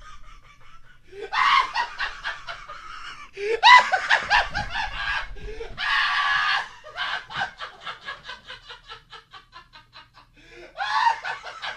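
High-pitched laughing in bursts, with a string of quick, short laughs from about seven to ten seconds in.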